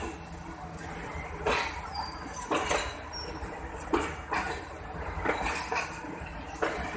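Passenger train coaches rolling slowly past, their wheels knocking over rail joints at an uneven pace over a steady low rumble, with a few short high squeaks from the wheels.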